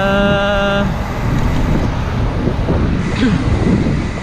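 Wind rushing over the microphone of a camera mounted on a moving bicycle: a steady low rumble mixed with street traffic noise.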